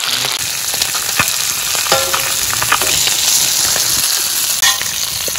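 Masala-coated whole red-bellied fish frying in hot oil on a large flat iron griddle: a steady high sizzle with scattered small pops.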